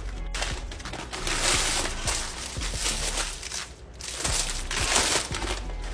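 A brown paper mailer being torn open, with loud rustling and ripping of paper in several bursts, then crinkling of plastic-wrapped packs of envelopes being handled.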